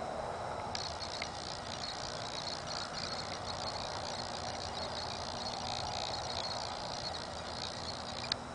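Electronic interference from an iPod touch picked up by the camera: a high-pitched noise that switches on abruptly about a second in and cuts off with a sharp click near the end, over a steady background hiss.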